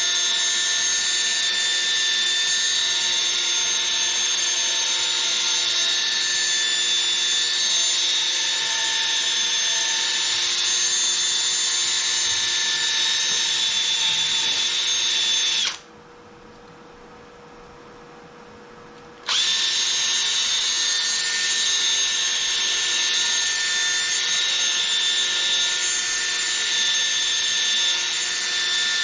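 Cordless drill spinning a sandpaper pad against a plastic headlight lens, a steady high whine. It stops a little past halfway for about three seconds, then starts up again.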